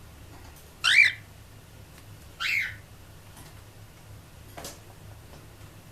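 Two short, high-pitched sneezes about a second and a half apart.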